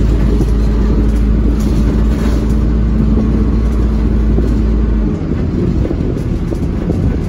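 Dennis Dart SLF bus's diesel engine and drivetrain heard from inside the saloon while under way: a steady low drone with a held tone above it, both dropping away about five seconds in as the engine note falls.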